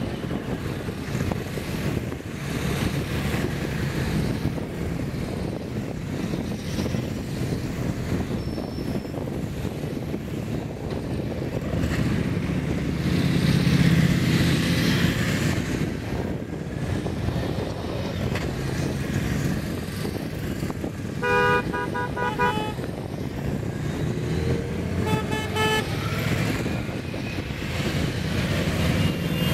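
Convoy of motor vehicles driving by with engines running, louder as vehicles pass about halfway through. A horn toots several times in short blasts about two-thirds of the way in, and again a few seconds later.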